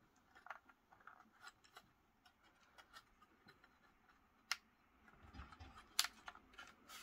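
Faint scattered clicks and taps of an M.2 Wi-Fi card being handled and pushed into its slot on a mini PC's motherboard, with a sharper click about four and a half seconds in and another about six seconds in.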